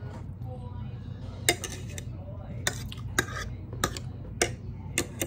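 A metal fork clinking against a plate while picking up vegetables: about seven sharp clinks, starting about one and a half seconds in.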